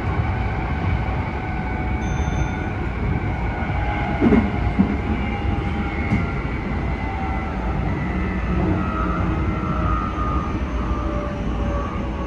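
Keikyu 1000 series electric train running, with the whine of its traction motors, which this set is known for, and running and track noise. The whine slowly falls in pitch as the train slows. A couple of short knocks come about four seconds in.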